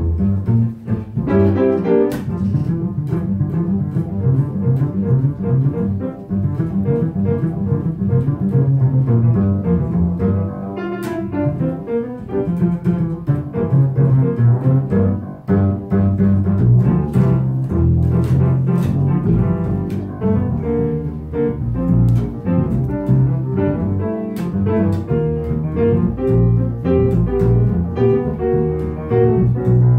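Live instrumental ensemble music: a piece played continuously, with a low string instrument carrying much of the line and piano alongside.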